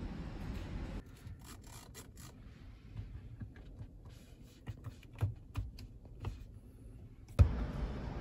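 Scattered light clicks and taps from a finger pressing buttons on a car's centre console, with rubbing handling noise, then one sharp loud knock near the end.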